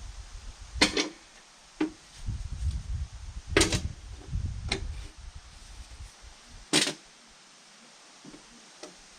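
About five sharp knocks and clunks spread over several seconds, over a low rumble that fades out after about six seconds.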